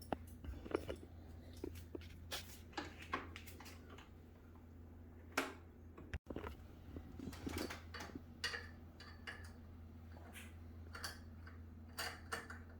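Scattered small clicks, taps and knocks of hard plastic and metal exercise-bike parts being handled and fitted during assembly, over a steady low hum.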